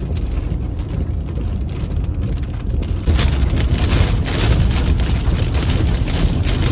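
Heavy rain and strong wind beating on a car, heard from inside the cabin, over a steady low rumble. About three seconds in it gets louder and hissier as the downpour picks up.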